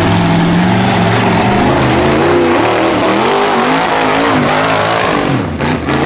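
Off-road vehicle's engine held steady for about a second, then revved up and down repeatedly under quickly changing throttle, dropping briefly near the end before picking up again.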